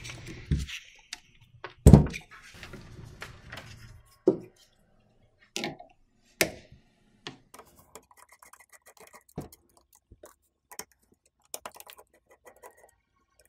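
Small metal hand tools, a screwdriver and pliers, clicking and knocking against the terminal bolts and connectors of sealed lead-acid batteries as the terminals are undone. Irregular short sharp clicks with quiet gaps, the loudest knock about two seconds in.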